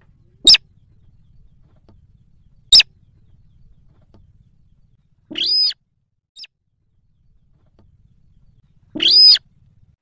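Slaty-breasted rail calling: two very short, sharp clicks about two seconds apart, then two harsh, arched calls of under half a second each, about four seconds apart, with a faint short note between them.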